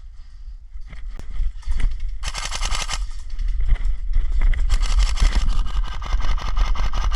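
Airsoft guns firing rapid full-auto strings: a short burst about two seconds in, then longer, nearly continuous fire from about three and a half seconds on.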